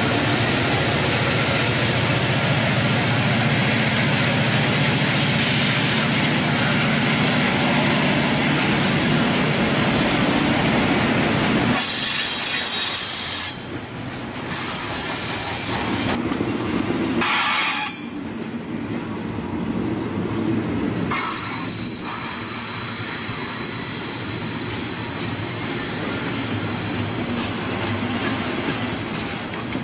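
Diesel freight locomotives in Santa Fe and Burlington Northern paint passing close by, their engines loud for the first third. Then double-stack container cars roll past with wheel squeal, intermittent at first and, from about two-thirds through, a steady high-pitched squeal over the rumble of the wheels.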